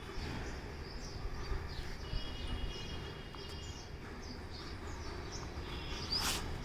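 Birds chirping: short, repeated high calls, a brief rapid trill about two seconds in and a sharp chirp near the end, over a steady low rumble.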